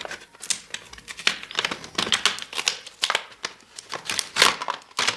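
Small cardboard box being torn open by hand: an irregular run of sharp cracks, rips and crinkles of card and packaging.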